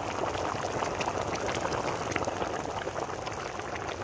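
A pot of rice boiling hard over a wood fire, frothing, with a steady dense bubbling.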